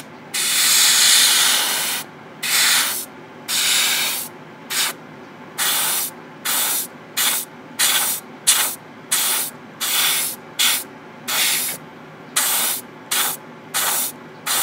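Gaahleri GHAD-39 dual-action airbrush spraying green paint onto a plastic model part. There is one long hiss of about two seconds, then a run of short hisses, each well under a second, as the trigger is pulsed.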